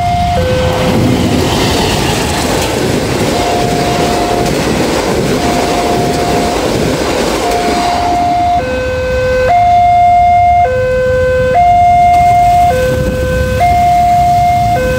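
Diesel-hauled parcel train's wagons rumbling past on the rails, over an electronic two-tone warning alarm that alternates a higher and a lower tone about once a second. The rumble fades about halfway through as the train moves off, leaving the alarm loud and clear.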